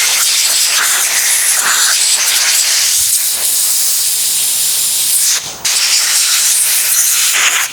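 Compressed-air blow gun blasting a loud, continuous hiss over the outside of an outboard carburetor to clean it, with a brief break about five and a half seconds in, then cut off near the end.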